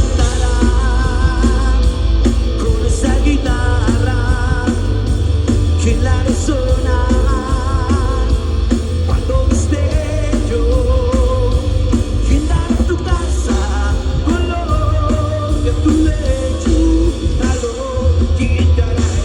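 Live rock band playing loud and bass-heavy, with drums and a wavering lead melody line over the top.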